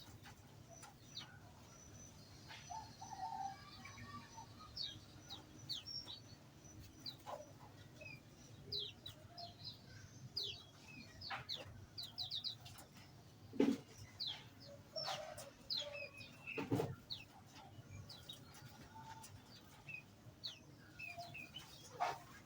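Small aviary songbirds chirping: many short, high chirps scattered throughout. Two louder knocks come through about 14 and 17 seconds in.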